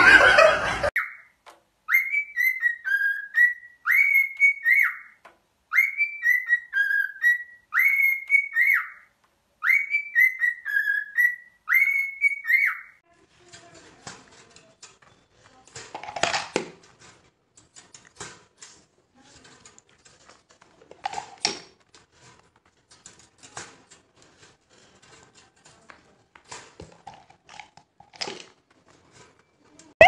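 A parrot whistling a short phrase of clear notes over and over in groups for about ten seconds, each note rising sharply, holding, then dropping. A brief loud sound comes first, and faint scattered clicks and knocks follow the whistling.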